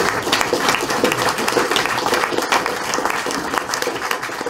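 Audience applauding, many hands clapping densely and steadily.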